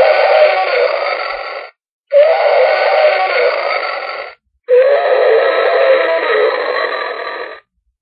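Dinosaur roar sound effect, three roars of two to three seconds each with short silent gaps between them. Each roar starts with a rising tone that then wavers and sinks.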